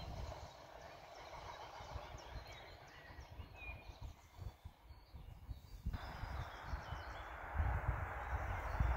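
Wind buffeting the microphone in gusts, stronger near the end, over the faint rumble of a rail vehicle fading as it moves away down the line.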